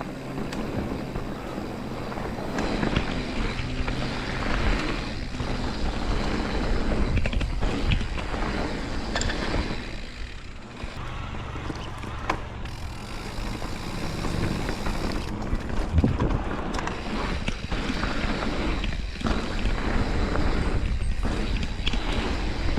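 Mountain bike riding down a dirt jump trail: a steady rush of wind and tyre rumble on the dirt, with scattered knocks and rattles from the bike over bumps and landings, the sharpest about two-thirds of the way through.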